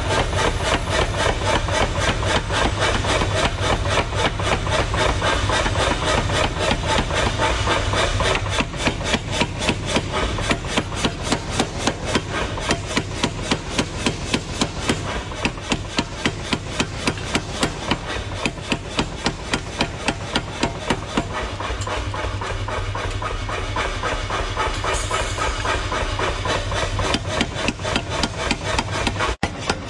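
Power hammer pounding a red-hot blank of thick car spring steel in a rapid, even run of blows, drawing it out into a cleaver, over a steady low hum.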